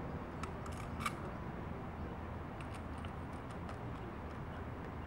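Faint outdoor background noise with a few light, sharp clicks: two within the first second or so and a short run of softer ticks around the middle.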